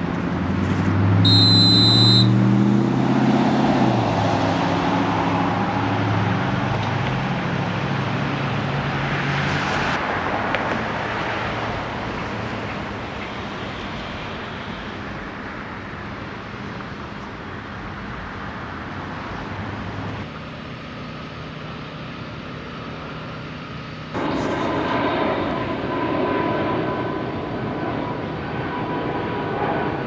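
Outdoor construction-site and city background: a steady rumble of engines and traffic, with a louder pitched engine drone over the first few seconds that slides down and fades, and a short high electronic beep about a second in. The background noise changes abruptly and gets louder near the end.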